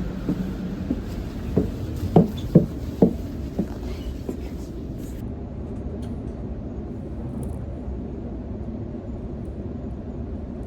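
Steady low rumble of a suburban passenger train heard from inside the carriage, with a few sharp clunks about two to three seconds in.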